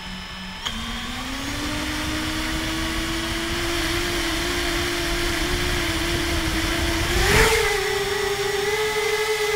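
Tricopter's electric motors and propellers spinning up with a steady whine after a click near the start. The pitch steps higher with a surge about seven seconds in as the throttle rises for lift-off, and wind rumbles on the microphone throughout.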